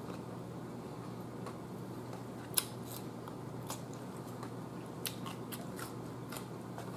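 Raw cucumber slices being chewed close to the microphone: a scattering of crisp crunches, the loudest about two and a half seconds in and several more close together near the end, over a steady low hum.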